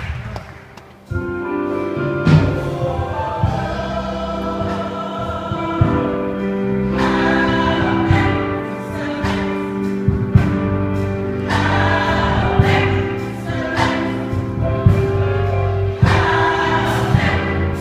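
Gospel choir singing in harmony, coming in about a second in after a brief hush.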